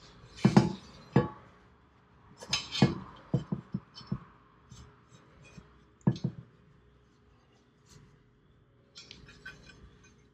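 Hard parts being handled on a workbench: a series of short clinks and knocks, bunched between about two and four seconds in and again at about six seconds, with faint ticks near the end.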